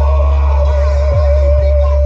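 Loud electronic music with a heavy, continuous bass line, played through a car audio sound system; the bass drops out briefly twice.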